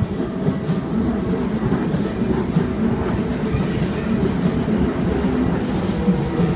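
Electric commuter train passing through a level crossing close by, a steady, loud rumble of wheels on the rails.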